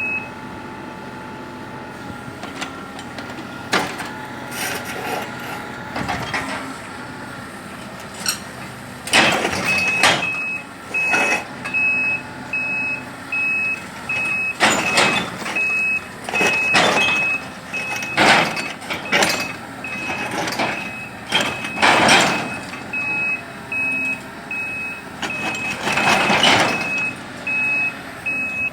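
Small Kubota machine's engine running as it climbs ramps onto a truck, with its travel alarm beeping about twice a second from about ten seconds in. Repeated loud surges of engine and machine noise.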